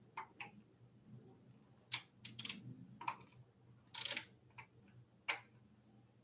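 Faint, irregular small clicks and short scrapes of hand work on metal e-bike parts, as the front light is fitted on the fork, with a slightly longer scrape about four seconds in.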